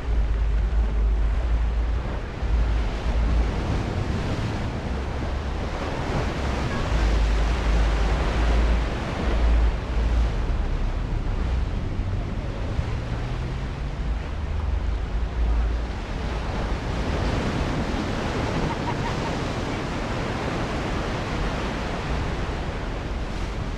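Ocean surf breaking and washing over rocks at the foot of a sea cliff, the wash swelling louder twice, with wind buffeting the microphone in low rumbling gusts.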